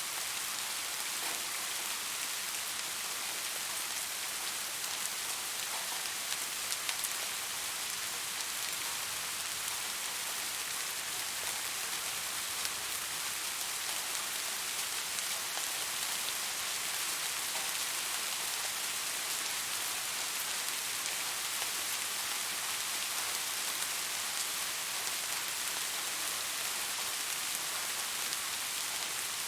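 Steady rain falling, an even hiss of many drops with faint scattered drop ticks.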